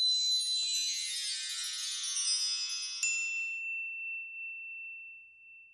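Chime sound effect for a logo sting: a shimmering cascade of many high, bell-like tones. About three seconds in a second bright strike sounds, leaving one high tone that rings on and slowly fades away.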